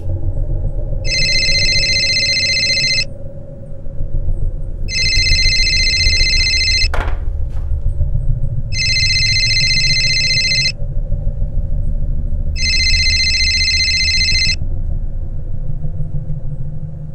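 A telephone ringing four times: each ring is an electronic trill of about two seconds, with pauses of about two seconds between, over a low steady rumble. A single sharp click sounds about halfway through.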